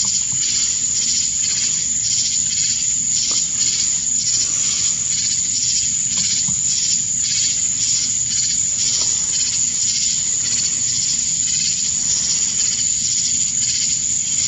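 Crickets chirping in a steady rhythm, about two to three chirps a second, over a continuous high trill.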